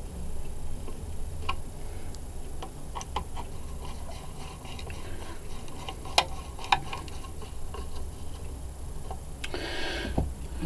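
Sparse light clicks and taps of a screwdriver and small metal parts as screws are gently snugged into the oscilloscope's chassis, one sharper click about six seconds in, over a steady low hum.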